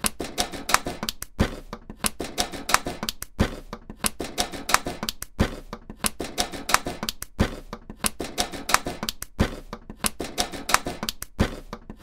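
An edited, looped sound effect of rapid sharp clicks that repeats about every two seconds. Each cycle starts after a brief gap with a heavier thud.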